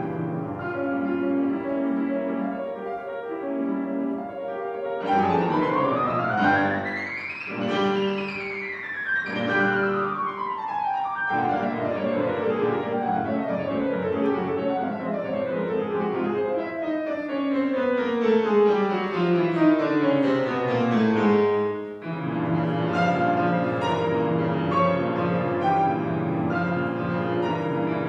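Piano music. A fast run climbs about five seconds in, then a long series of overlapping runs cascades downward. The music breaks off briefly about 22 seconds in and goes on with steadier repeated notes and chords.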